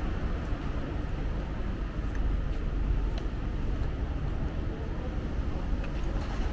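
City street ambience: a steady low rumble of traffic on wet roads, with a few faint ticks here and there.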